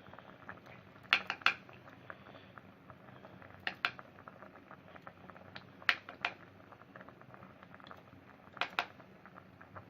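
A spoon knocking against the pot in pairs of sharp clinks, four times, while foam is skimmed off simmering orange and lemon marmalade. Faint small pops of the bubbling jam sound in between.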